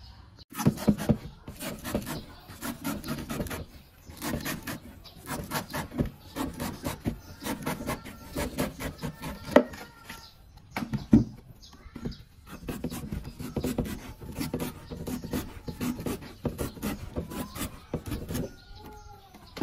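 A large kitchen knife shaving and slicing the green skin off a young coconut: a quick run of rasping, fibrous cuts, with a few sharper knocks of blade and coconut against the wooden table.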